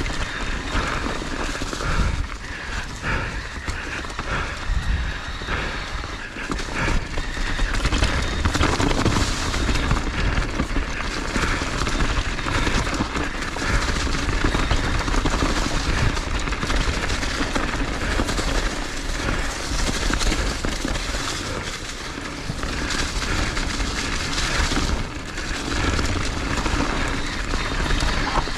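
Edges carving and scraping on packed snow during a fast downhill run, with wind rushing over the microphone and the scraping swelling and easing from turn to turn.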